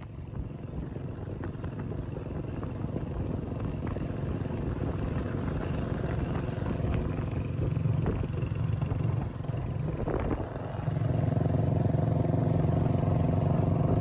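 Small motorcycle's engine running under way, growing louder over the first few seconds, dipping briefly about ten seconds in, then running steadily louder.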